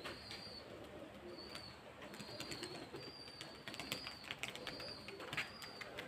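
Domestic pigeons cooing softly, with scattered sharp clicks and a thin high tone that comes and goes.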